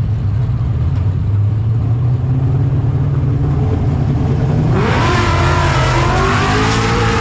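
Deep, steady race-car engine rumble, then an engine revs up sharply about five seconds in and holds at high revs.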